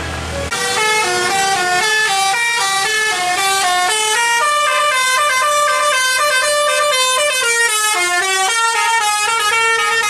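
Tour bus's telolet basuri musical horn playing a fast, stepping multi-note melody without a break, starting about half a second in.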